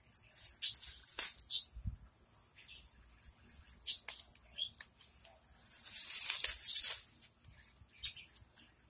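Leaves and stems rustling as weeds are pulled out of ground cover by hand, in short irregular bursts with one longer, louder rustle about six seconds in.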